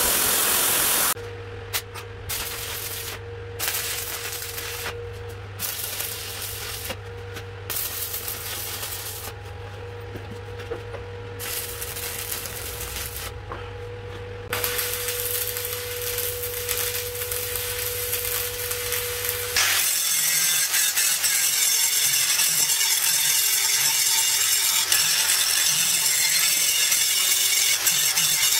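A belt grinder stops about a second in. For the next eighteen seconds or so an arc welder tacks steel feet onto square-tube legs: crackling arc bursts that start and stop over a steady electrical hum. After that a handheld angle grinder grinds a steel plate, running steadily to the end.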